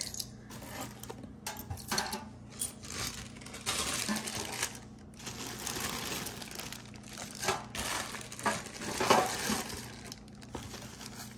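Small metal costume jewelry pieces clinking together and clear plastic zip bags crinkling as loose pieces are gathered up and put back, with irregular clicks and rustles and one sharper clink about nine seconds in.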